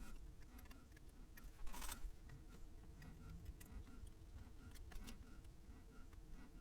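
Faint clicks and taps of small parts and tools being handled while soldering IC sockets onto a circuit board, with a short scratchy rustle near two seconds in. Under it runs a faint steady ticking, about three ticks a second.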